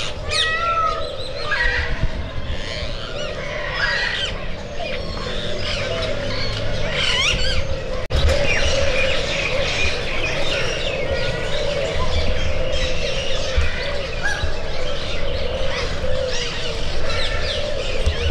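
Many small birds chirping and squawking in a dense, overlapping chorus of short calls, over a steady wavering hum, with a brief break in the sound about eight seconds in.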